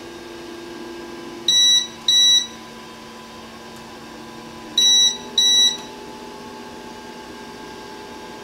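QIDI X-MAX 3D printer's buzzer beeping as a print job starts: two pairs of short, loud electronic beeps about three seconds apart, over the machine's steady low hum.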